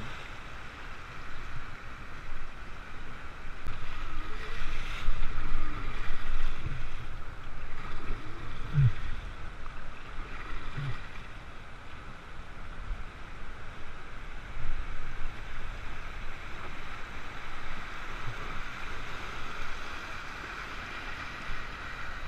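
Rushing whitewater of river rapids churning around an inflatable raft, with a low rumble underneath; the rush swells louder a few seconds in.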